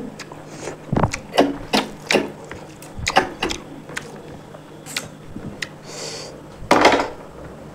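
Close-miked eating sounds: irregular sharp clicks and wet smacks of chewing, spaced unevenly, with a louder noisy burst about seven seconds in.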